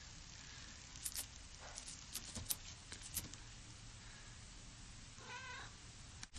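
Domestic cat giving one short, wavering meow about five seconds in, after a few faint sharp clicks and taps, the loudest about two and a half seconds in.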